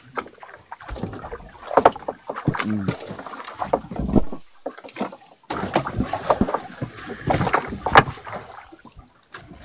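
Repeated knocks and clatter aboard a small fishing boat, with a few brief vocal sounds between them.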